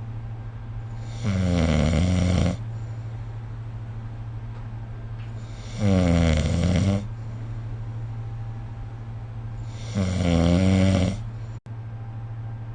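A person snoring in sleep: three snores, each lasting a little over a second, about four seconds apart, over a steady low hum.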